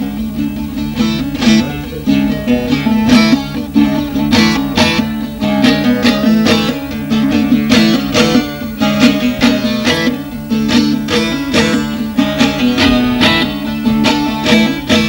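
Bağlama (long-necked Turkish saz) playing an instrumental interlude between sung verses. A quick plucked melody runs over a steady low drone.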